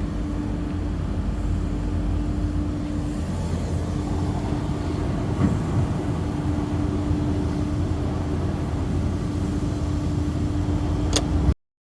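Steady low mechanical running sound with a constant hum, like an idling engine or motor. A sharp click comes near the end, and then the sound cuts off suddenly.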